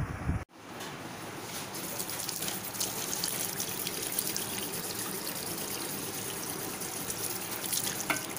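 Tap water running steadily, starting suddenly about half a second in, as a face is rinsed clean of a face mask.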